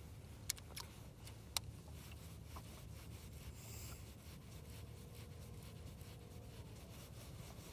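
Faint outdoor ambience with low rubbing and rustling against the microphone, broken by three sharp clicks in the first two seconds.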